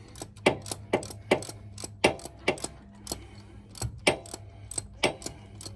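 Ratchet wrench clicking in short strokes as the oil drain plug is worked loose: a run of sharp clicks, about two or three a second, over a low steady hum.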